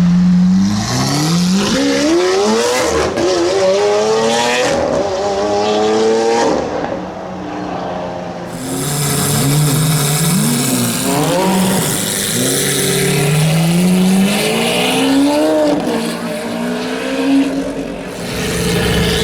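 Lamborghini Aventador's 6.5-litre V12 revving hard several times, its pitch climbing steeply and dropping back between the rises.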